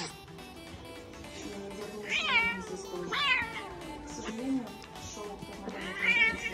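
A hairless cat meows three times, each call short and falling in pitch, about two, three and six seconds in, over background music.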